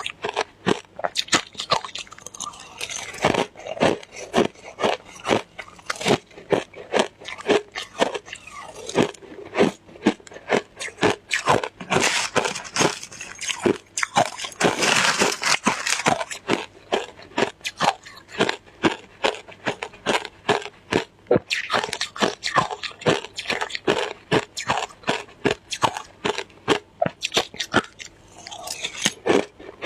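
Shaved ice being bitten and chewed close to the microphone: a steady run of sharp crunches, about two to three a second.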